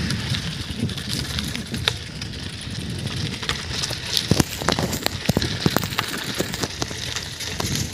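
Footsteps on a dirt woodland path, with irregular sharp clicks and a low rumble from the phone being carried while walking.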